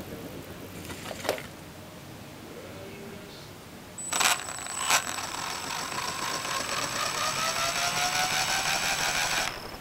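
RC helicopter's motor and drivetrain spinning up: after a click about a second in, it starts with two sharp clicks about four seconds in, then runs with a rasping noise and a whine that slowly rises in pitch before cutting off suddenly near the end. The owner suspects this noise comes from the motor or from the main gear.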